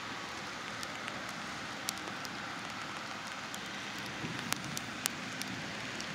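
Diesel switcher locomotive approaching slowly, its engine running low under a steady hiss, with a few sharp clicks, the loudest about four and a half seconds in.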